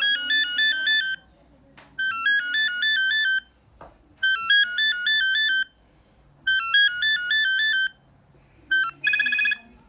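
Brondi DC2060 phone playing an electronic beeping ringtone melody. One short phrase of about a second is repeated four times with brief pauses. Near the end a short beep is followed by a different buzzing trill tone.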